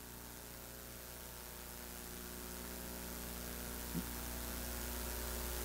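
Steady electrical mains hum with hiss from the microphone and sound system, slowly getting louder. There is one brief faint sound about four seconds in.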